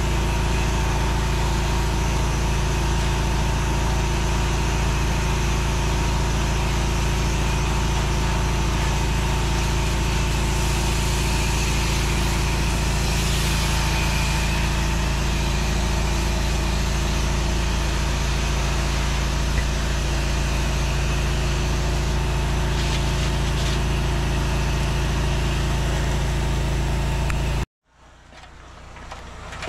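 8 gpm pressure washer's engine running steadily under a high-pressure water jet hissing from the wand and spraying onto concrete steps. The sound cuts off abruptly near the end.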